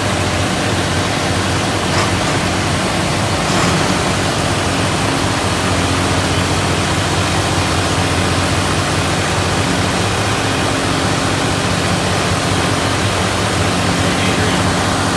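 Volvo Penta inboard diesel engines running steadily, heard through the open engine hatch: a steady low hum under a broad rushing noise.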